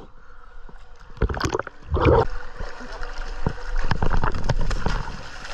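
Sea water splashing and sloshing at the surface against the side of a small boat, with scattered knocks and clatter against the hull and one louder splash about two seconds in.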